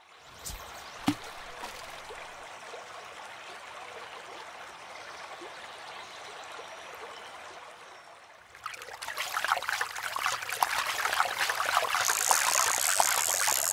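Running water trickling steadily, becoming clearly louder about eight and a half seconds in, with a single click about a second in.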